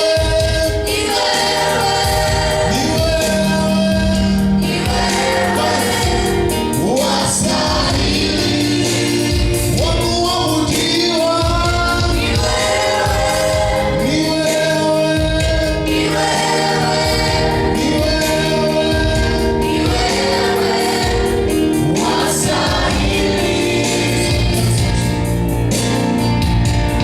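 Gospel choir singing, several voices holding long notes over steady sustained low notes from the accompaniment.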